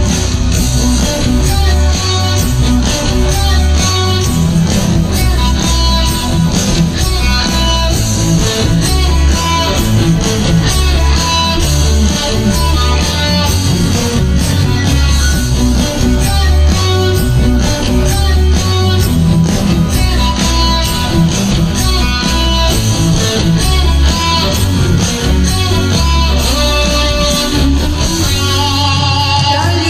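Instrumental passage of a karaoke backing track: guitar-led pop music over a steady repeating bass line, with no singing.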